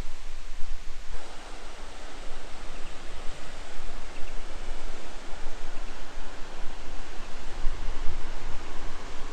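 Steady rushing of a waterfall, growing fuller about a second in, with an uneven low rumble underneath.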